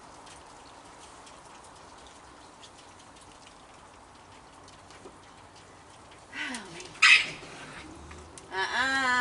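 Raccoons jostling over food: faint small ticks and shuffles, then near the end a short falling growl, a sharp hiss about seven seconds in, and a wavering squeal just before the end.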